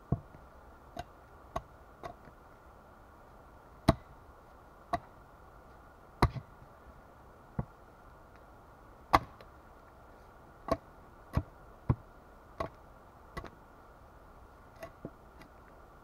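Axe chopping into the lower end of a wooden pole stood upright on a stump: sharp strikes at irregular spacing, roughly one a second, with a few short pauses and some blows coming in quick pairs.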